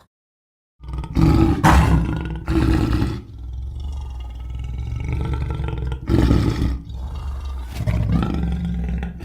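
Cougar (puma) calling: after a brief silence, a run of loud, deep, harsh calls in several bursts, the strongest about a second in and again around six seconds.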